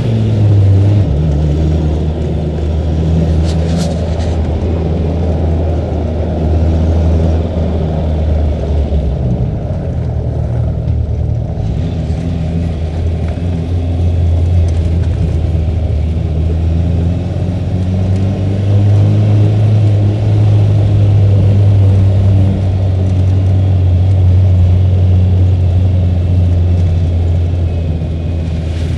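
Quaddragon off-road car's engine running as it drives along a rough track, heard from on board, its note shifting up and down with the throttle over a steady rumble from the car and track.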